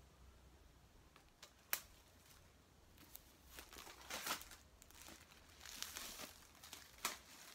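Clear plastic shrink-wrap on a MacBook Air box crinkling and tearing as it is peeled off, in faint crackly bursts through the second half. A single sharp click comes nearly two seconds in.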